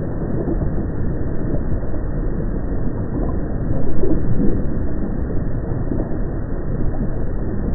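Muffled, steady low rumble from a recording made at an active volcano, with a louder swell about four seconds in.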